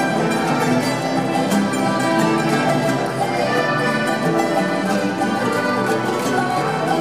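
A live string ensemble led by acoustic guitars playing a lively Puno-style tune (música puneña) without a break.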